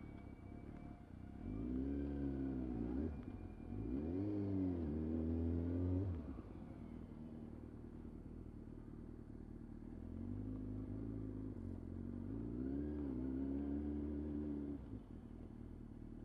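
Motorcycle engine pulling away at low speed. The revs rise and fall about two seconds in and rise again and hold from about four to six seconds. They settle to a steady low run, then climb twice more between about ten and fifteen seconds.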